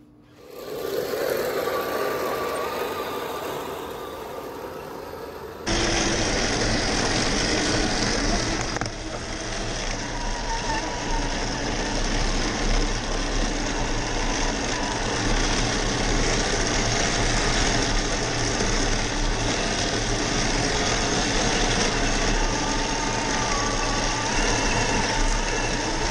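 Heng Long 1:16 Challenger 2 RC tank driving: its electric drive motors and gearboxes whir, together with the engine sound from its built-in sound unit. The steady running noise starts suddenly about six seconds in, after a few seconds of a fading hiss.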